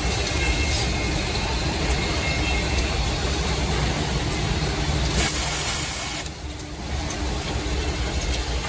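Woodmaster automatic two-head drilling and insert-nut machine running, its electric drill motors humming steadily. About five seconds in there is a loud hiss lasting about a second.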